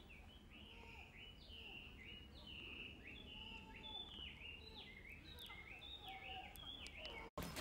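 Faint calls of many small birds: short, quick chirps that overlap and follow one another throughout, over a low outdoor hum.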